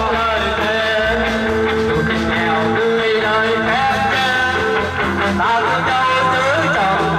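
Live band playing amplified rock-style music through PA speakers: electric guitars over a drum kit, with a bending melody line on top.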